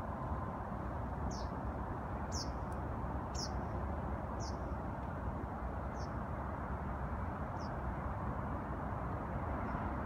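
Common kingfisher calling: six short, thin, high whistles, each sliding down in pitch, about one a second at first, then further apart and fainter. A steady low rumble of distant traffic lies underneath.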